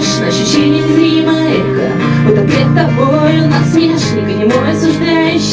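Acoustic rock song: guitar playing under a sung melody, loud and steady throughout.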